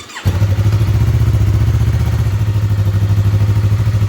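2015 Yamaha R3's 321 cc parallel-twin engine starting up and settling into a steady idle, run to circulate freshly changed oil and check the level.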